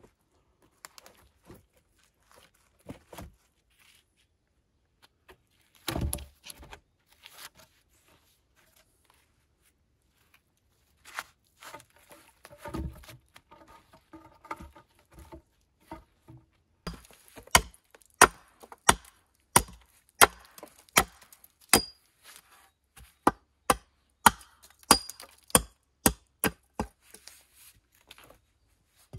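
Hatchet chopping wood: a run of about twenty sharp blows, roughly two a second, through the second half. Before it, logs are handled and set down with scattered knocks and two heavy thumps.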